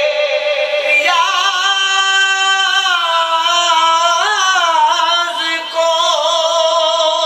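A man singing an Urdu naat unaccompanied in a high register, drawing out long held notes with a wavering swell about four seconds in and a short breath near six seconds.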